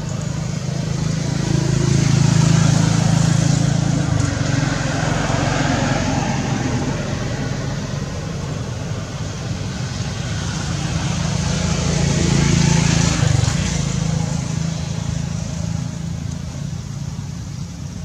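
Motor vehicle engine and road noise, steady with two swells in loudness, one a couple of seconds in and one about two-thirds of the way through.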